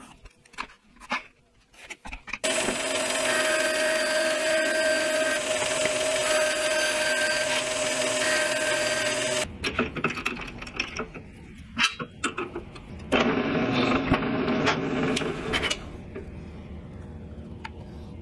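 A power tool runs steadily for about seven seconds with a strong steady tone, then stops suddenly. Later a drill press bores a Forstner bit into MDF, the cut loudest for about three seconds, and the motor runs on more quietly afterwards.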